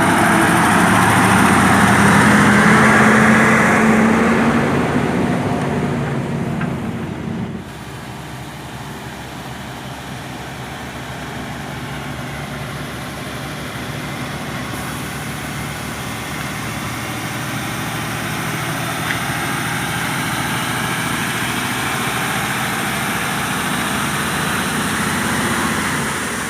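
Nissan TZA520 logging truck's diesel engine running, its note rising slightly over the first few seconds. About seven and a half seconds in it drops suddenly to a quieter, steady running that slowly grows louder.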